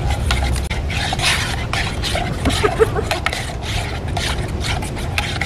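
A spoon stirring and scraping quickly inside a metal camp mug, mixing powdered milk, in a fast run of short scraping strokes.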